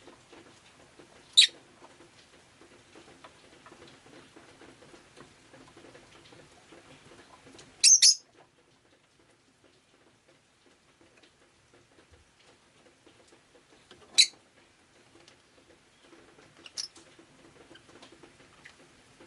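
Rosy-faced lovebird giving short, shrill chirps: a single call about a second in, a quick double call near the middle, another single call later and a weaker one near the end, with several seconds of quiet between them.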